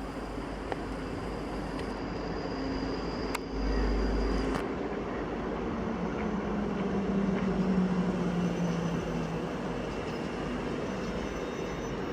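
ScotRail train running through the station with a steady rumble and a humming tone that shifts in pitch, loudest a little past the middle. A short low buffeting comes about three and a half seconds in.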